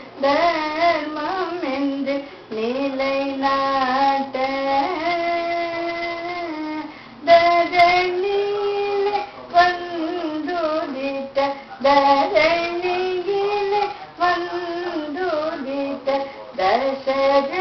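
An elderly woman singing a lali, the devotional song on Rama sung at the oonjal swing ceremony of Iyer weddings, solo in Carnatic style. Her voice holds and ornaments long notes with wavering glides, with short breaks between phrases.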